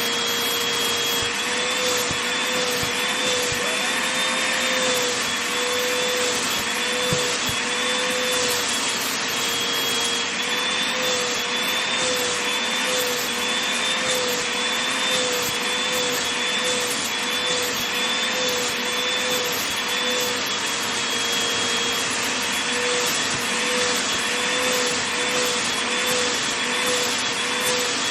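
Vacuum cleaner running steadily while being passed over a blanket: a constant rushing hiss with a motor whine that wavers slightly in pitch.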